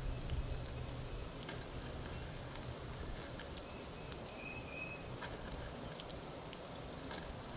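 Gray squirrel cracking and chewing seeds close by: scattered small, sharp clicks at an irregular pace, over a steady low rumble.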